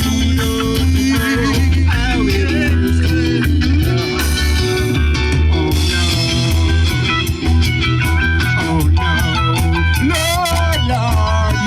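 Live band playing an instrumental passage: a steady bass line and beat under a guitar lead line that bends in pitch.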